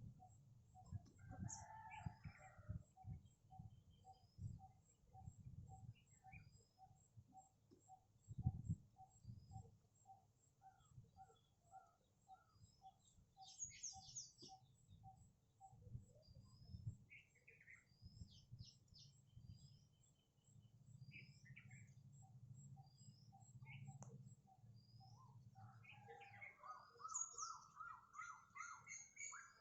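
Faint birdsong and calls: scattered short chirps and whistles, a steady pulsing note repeating about three times a second through the first half, and a quick run of repeated notes near the end.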